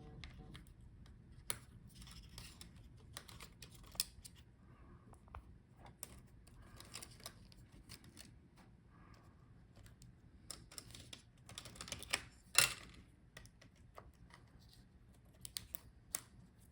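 Faint, scattered small clicks and handling noises of plastic ribbon-cable connector latches and cables being worked on an HP EliteBook 850 G8 laptop's motherboard, with a sharper knock about twelve seconds in.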